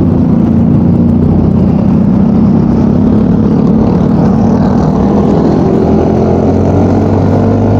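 Yamaha Mio Gravis scooter cruising at a steady speed: its engine runs evenly under a loud, constant rush of wind and road noise.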